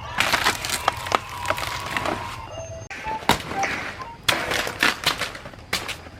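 Irregular sharp cracks and snaps with scraping between them, like woody plant material being cut or broken by hand.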